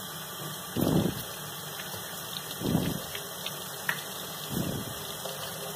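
Kitchen faucet running steadily into a stainless steel sink as fish are rinsed by hand under the stream, with a dull rush of water about every two seconds.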